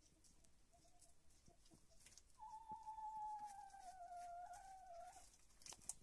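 A domestic hen gives one long, drawn-out call of about three seconds that sags slowly in pitch. Under it are faint pecking and scratching clicks from hens feeding in wood shavings, with one sharper tap near the end.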